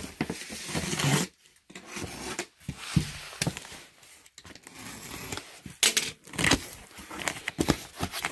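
Box cutter slicing through packing tape on a cardboard carton, then the cardboard flaps being pulled open: irregular scraping, tearing and rustling with a few sharp knocks.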